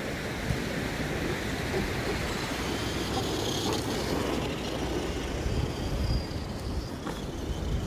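Tamiya Konghead RC monster truck driving over rough ground: a steady rushing rumble of its tyres and running gear, with a faint electric-motor whine that rises and falls a few times around the middle.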